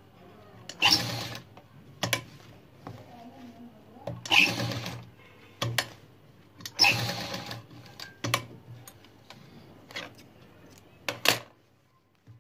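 Uppal sewing machine stitching in several short runs, each under a second, with brief pauses between as the fabric is repositioned.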